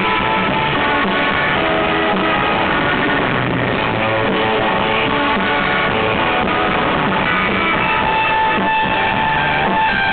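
Live surf rock played loud on a Fender Stratocaster electric guitar with the band, continuous and dense with sustained notes.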